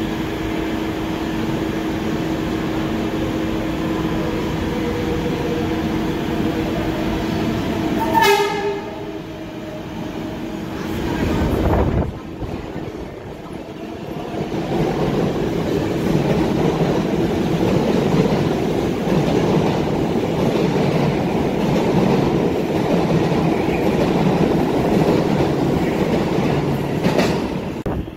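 New York City subway 7 train pulling into a station: a steady tone as it approaches, a short horn blast about eight seconds in, and a loud thump near twelve seconds. It then runs along the platform with a steady rumble and wheel noise, which drops off near the end.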